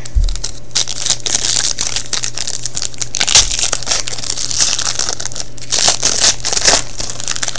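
Wrapper of a 2011-12 Rookie Anthology hockey card pack being torn open and crinkled by hand: a dense run of crackles and rips throughout.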